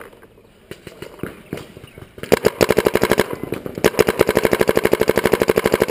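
Proto Reflex Rail paintball marker firing: a few single shots, then a rapid string at about twelve shots a second, broken twice briefly, for the last three and a half seconds.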